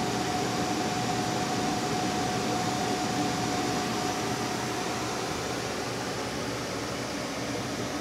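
A Termodinamica 24-volt DC marine air conditioner running at full power, with the fan and compressor at maximum speed. The air handler blows a steady rush of air from the supply duct, with a faint steady tone that fades out about halfway through.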